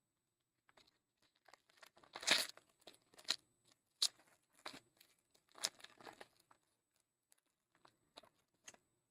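A foil trading-card pack wrapper being torn open and crinkled in the hands: a run of short rips and rustles, loudest about two seconds in, with fainter crinkles near the end.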